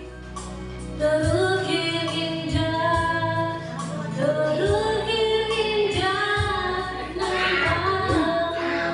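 A woman singing karaoke into a handheld microphone over a backing track, her voice carrying long held notes above a steady bass line.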